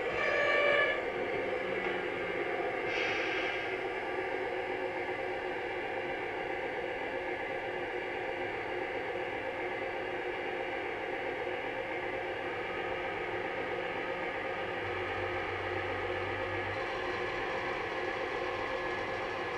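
Steady mechanical hum as a Millhouse River Studio O-gauge model turntable rotates its bridge, carrying a model diesel locomotive. A short louder tone sounds in the first second, and a brief hiss about three seconds in.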